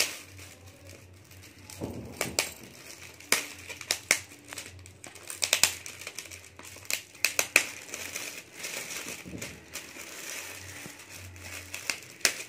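Shiny metallic foil gift wrap crinkling and crackling as hands pull at a tightly packed present, with sharp, irregular crackles scattered throughout.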